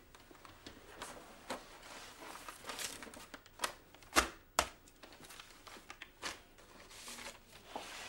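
Newspaper and papers rustling and crinkling on a desk as they are handled, with two sharp knocks about four seconds in, half a second apart.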